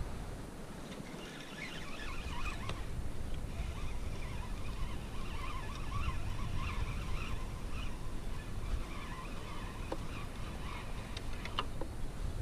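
Spinning fishing reel being wound in against a hooked fish, in short spells of whirring with a few clicks, over a steady rumble of wind on the microphone and water around the kayak.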